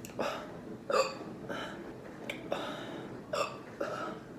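A person hiccupping repeatedly, short sharp hiccups roughly once a second.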